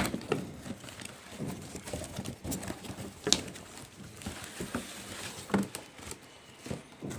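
Cardboard boxes and plastic bubble-wrap packaging being handled while unpacking: scattered rustling and tapping, with a few sharper knocks of box against box.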